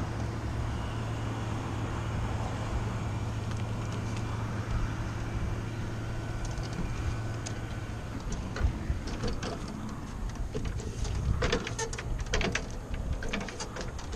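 A steady low machinery hum that fades out about six seconds in, followed by scattered knocks and clicks of handling and movement.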